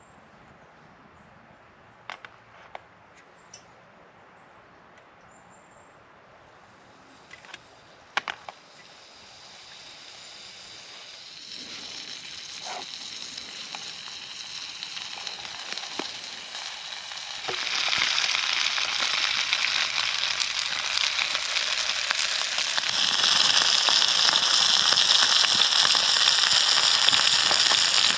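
Burgers sizzling in a frying pan over a wood gas stove. The sizzle starts faint about nine seconds in and grows louder in steps, loudest near the end. A few sharp clicks come before it.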